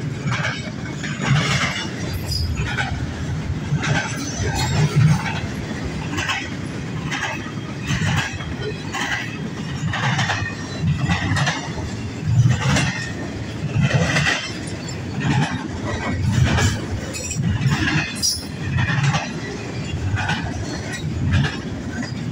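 A CN freight train rolls past close by with a steady low rumble. Its wheels clack sharply over rail joints, roughly once a second.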